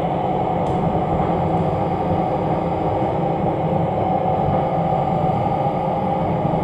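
Steady running noise heard inside the cabin of the Batara Kresna diesel railbus as it rolls slowly at under 30 km/h: an even rumble and hum that holds at one level throughout.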